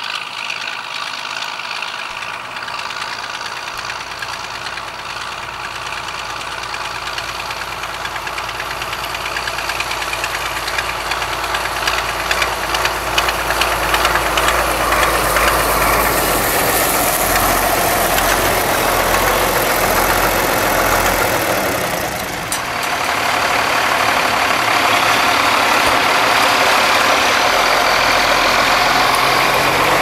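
John Deere 4440 tractor's diesel engine running with a clattering note as it pulls a grain trailer closer, growing louder as it comes by. The sound dips briefly about two-thirds of the way through, then runs steady and loud.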